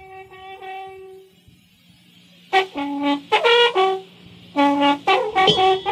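Cajamarca clarín, a long cane trumpet, sounding one held note, then after a short pause a run of short notes jumping between a few pitches, over a faint steady hum.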